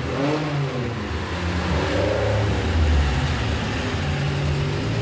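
The four-cylinder engine of a 1974 BMW 2002 race car on a chassis dyno. Its revs waver and fall in the first half-second, then it settles to running at low revs near idle.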